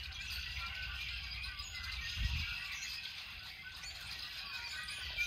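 A flock of birds calling and chirping, many short overlapping calls at once, fairly faint over a low rumble.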